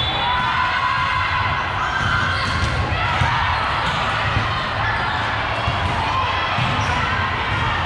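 A ball bouncing on a gym floor, with voices in the hall behind it.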